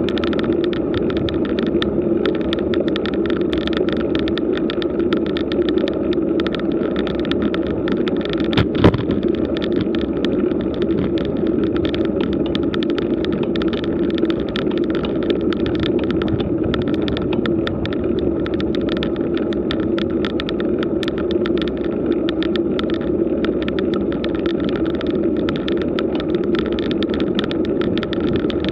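Steady riding noise of a road bike climbing slowly on rough asphalt, tyre and wind noise with many small rattles, and one sharper knock about nine seconds in.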